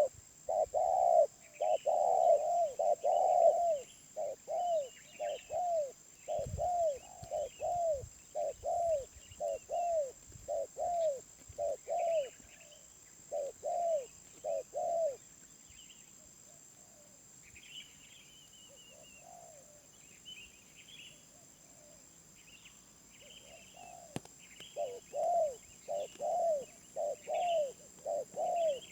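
Wild spotted dove cooing: a rapid run of short arched coos, about two a second, which breaks off about halfway through and starts again near the end. Smaller birds chirp faintly and higher throughout, over a steady high-pitched tone.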